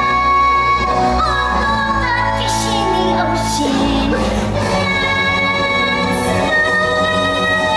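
A stage-musical song: singing over backing music, with several long held notes.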